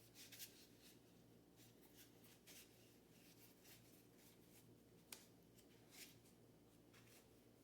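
Faint rustling and light ticks of game cards being handled and laid down into piles, over a low steady room hum; the sharpest tick comes about five seconds in.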